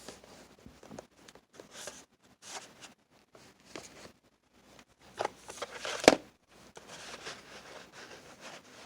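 Plastic floppy disks and their boxes being handled and packed away: scattered clicks, rustles and scrapes, with a sharper knock about six seconds in.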